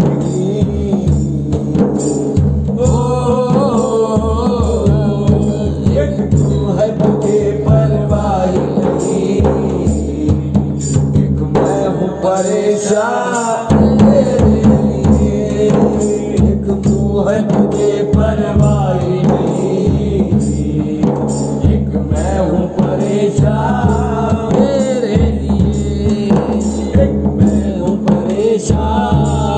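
Live music: a frame drum and hand drums keep a steady beat under a melodic line that glides and ornaments in pitch, with no clear words.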